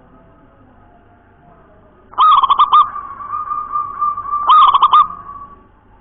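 Zebra dove (perkutut) cooing: a quick run of notes about two seconds in, a long held note, then another quick run of notes, dying away near the end.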